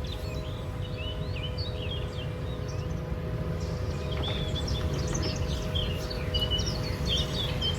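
Canon LBP2900 laser printer running a test print with a steady low hum and faint motor tones, free of any loud noise now that the fuser's pressure roller bushings have been replaced. Birds chirp in the background.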